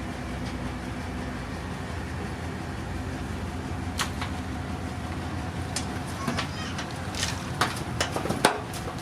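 Heavy diesel earthmoving machinery engine running steadily. Sharp clicks and knocks come in about halfway through and grow more frequent near the end.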